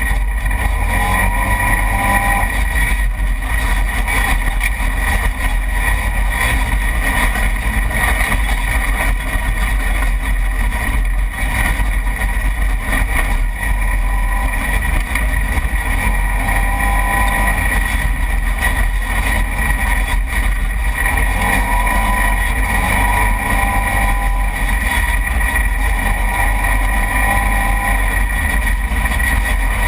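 Side-by-side UTV engine running steadily under load at speed on a dirt trail, with a strong low wind rumble on the hood-mounted camera's microphone.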